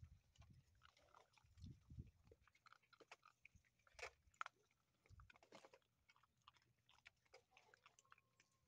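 Faint chewing and crunching of several XL American Bully puppies eating from a foil pan, with irregular small clicks throughout.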